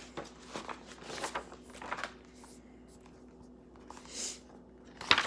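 Pages of a hardcover picture book being turned and the book handled: a few brief paper rustles and swishes with quiet gaps between them.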